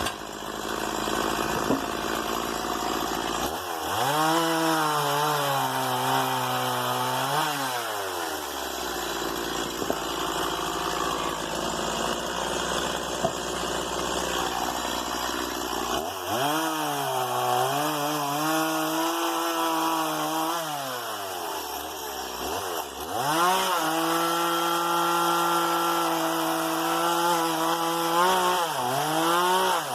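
Stihl MS 170 two-stroke chainsaw, idling low and then opened up to high revs three times, each burst lasting a few seconds. The pitch wavers and dips while at full throttle, as the saw works in wood.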